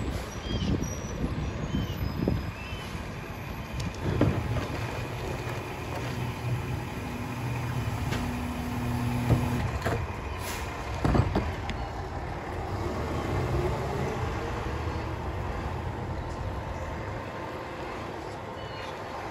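Mack Granite rear-loading garbage truck's engine running steadily, with a few sharp knocks and clanks.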